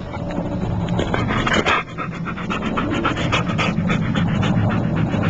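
A dog panting rapidly and rhythmically, over a steady low hum.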